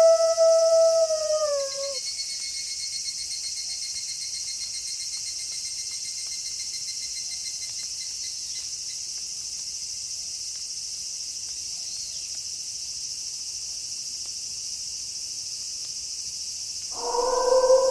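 A wolf howl holding one pitch, then sliding down and ending about two seconds in. A steady night chorus of insects follows, with a cricket trilling fast for several seconds. Another wolf howl starts near the end.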